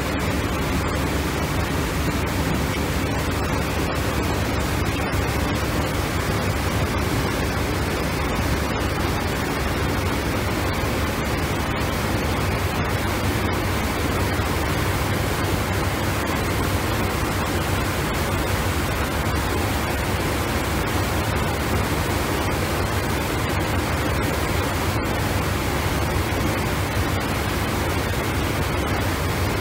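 Steady rushing noise of wind and water aboard a boat under way, unbroken and even in level, heaviest in the low end.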